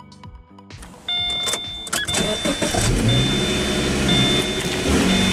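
Music ends about a second in and gives way to a car engine running, its exhaust now unrestricted with the clogged catalytic converter replaced by a flex pipe. A high beep repeats about once a second over the engine.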